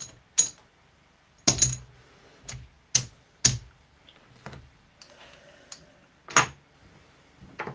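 Casino chips clacking as they are picked up, counted and stacked to pay out a winning bet: about eight sharp, irregularly spaced clicks.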